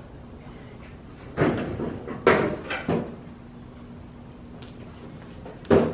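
Clunks and knocks of a car's metal deck lid being handled on the body, a few in quick succession about one and a half to three seconds in and one sharp thud near the end, over a faint steady hum.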